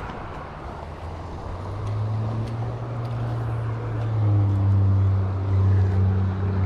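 A low, steady engine drone comes in about two seconds in and grows louder, over the rush of flowing creek water.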